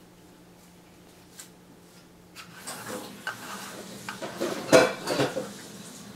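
Clicks, knocks and scraping of a heavy metal fisheye lens being handled, starting about two and a half seconds in, with the loudest knock near five seconds.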